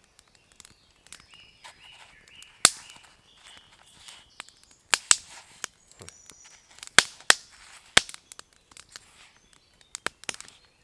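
Wood campfire crackling, with sharp, loud pops at irregular intervals, several of them close together in pairs.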